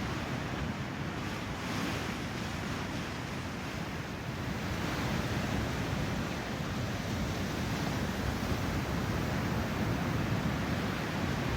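Ocean surf: waves breaking and washing in as a steady rush, with wind buffeting the microphone.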